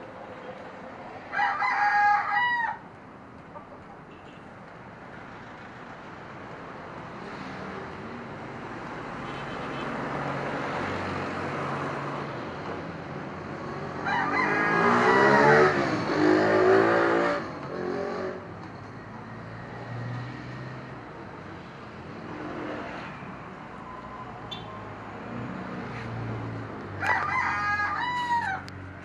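A rooster crows twice, a drawn-out call of about a second and a half about a second in and another near the end, over a steady hiss from a lit oxy-acetylene torch. About halfway through, a louder sound with a pitch that rises and falls lasts about three seconds and is the loudest part.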